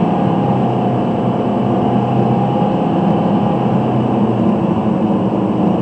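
Car driving at highway speed, heard from inside the cabin: a steady drone of engine and tyre noise with a low hum.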